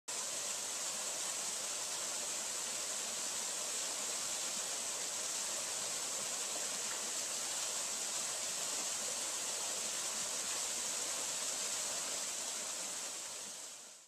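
Waterfall: a steady, even rush of falling water that fades out near the end.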